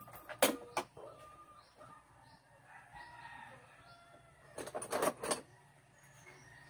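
Chickens clucking and crowing in the background, with two clusters of short, sharp knocks: one about half a second in and a louder one around five seconds in.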